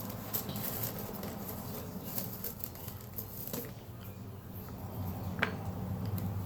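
Goopy homemade body-wash slime being stirred in a container: scattered small sticky clicks and ticks, with two short squeaks about halfway and near the end, over a faint steady low hum.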